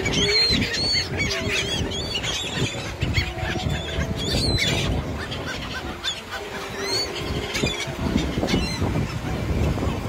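A flock of gulls calling over one another in short arched cries, thickest in the first second and again about four to five seconds in, over a steady low rumble of wind and surf.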